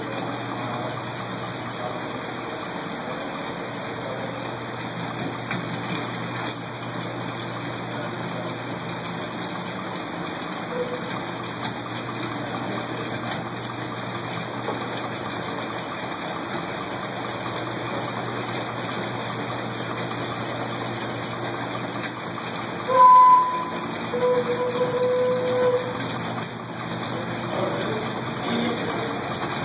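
Bicycle-pedal-driven air compressor running steadily, a rush of air over a low hum. About 23 s in, the homemade organ pipe it blows sounds: a brief high note, then a lower note held for about a second and a half, and the lower note again near the end.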